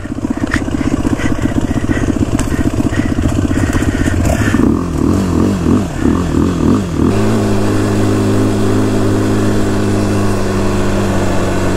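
Quad (ATV) engine running under the rider: steady for the first few seconds, its pitch rising and falling several times around the middle as the throttle changes, then settling to one steady pitch for the rest.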